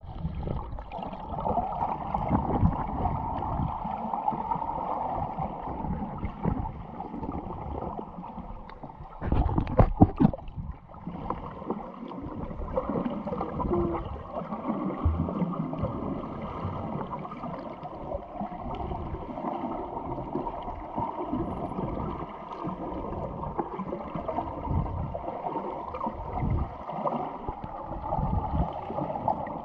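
Muffled underwater water noise picked up with the microphone submerged: a low, shifting rush of moving water. A short cluster of knocks about ten seconds in is the loudest part.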